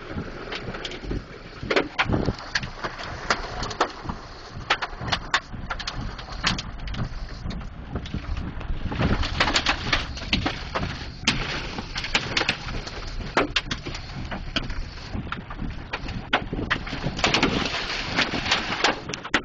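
Hail pelting a vehicle, heard from inside: many irregular sharp knocks over a steady rush of heavy rain and wind. The knocks come thickest in two spells, in the middle and near the end.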